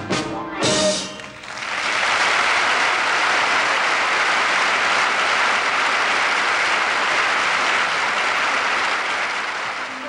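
An orchestra's last chords of a song, then a theatre audience applauding steadily from about a second and a half in.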